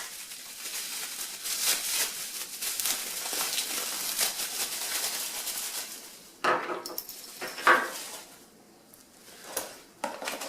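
Lift-kit parts being handled: a rustling, crinkling sound for about six seconds, then a few separate clinks and knocks of hard parts being set down.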